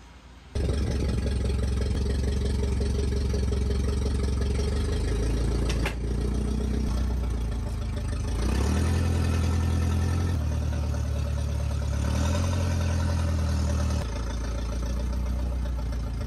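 Forklift engine running, starting abruptly about half a second in, its speed rising twice and settling back.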